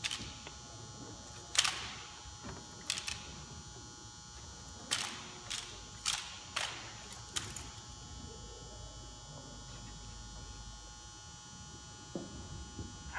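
A squad of drill rifles snapped through the manual of arms in unison: about eight sharp slaps and clacks of hands striking the rifles, in the first seven seconds or so, each ringing briefly in the gym's echo. After that only faint room noise until near the end.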